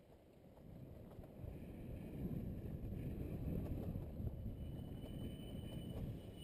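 Riding motorcycle heard from a bike-mounted camera: low wind and engine noise on the microphone that builds about a second in as the bike picks up speed out of a hairpin, then eases slightly near the end going into the next bend. A faint high whine runs through the second half.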